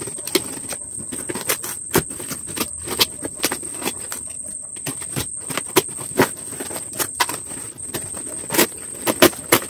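Cardboard box wrapped in plastic film being torn open by hand, giving many sharp, irregular crackles and rips, with a steady high-pitched whine underneath.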